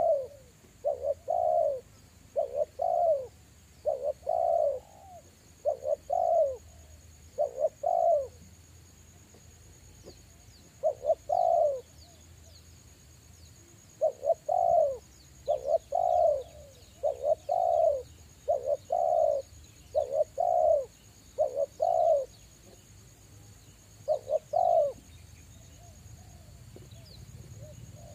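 Spotted dove cooing: a rapid string of low coo notes, broken by pauses of a few seconds and dying away near the end. Faint high chirps of small birds sound behind.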